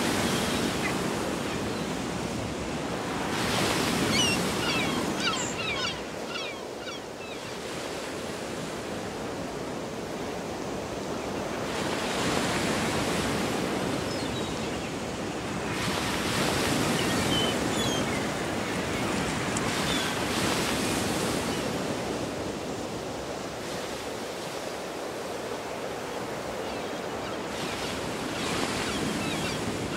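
Rushing sea surf and wind on the microphone at a cliff top, swelling and easing every few seconds, with a few faint short high chirps now and then.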